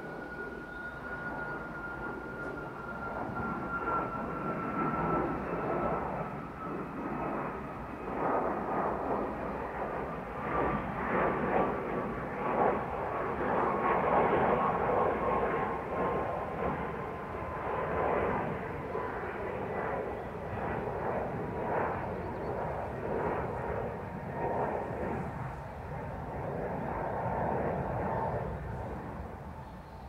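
Airliner passing overhead: a broad rumble with a thin whine that falls slowly in pitch as it goes by. It is loudest about halfway through and eases off near the end.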